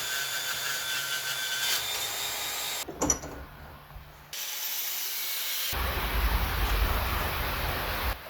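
Power tool noise from steel fabrication, heard as several short clips joined by abrupt cuts, with a brief knock about three seconds in.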